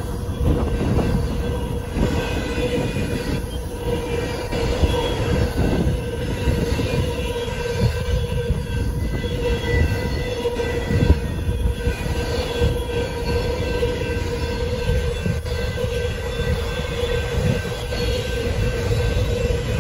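Intermodal train cars carrying highway trailers rolling past at a grade crossing: a steady low rumble of wheels with scattered clicks over the rail joints. The crossing signal's bell rings over it as a steady tone.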